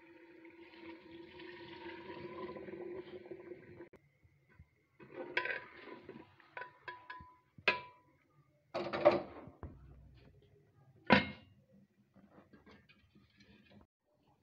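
Metal cookware being handled: a steady noise with a faint hum for about four seconds, then a run of sharp clanks and scrapes of a metal utensil against an aluminium cooking pot. The three loudest strikes come in the second half, a second or so apart.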